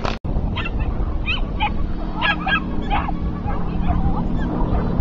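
A dog giving a quick, irregular run of short barks and yips as it runs an agility course.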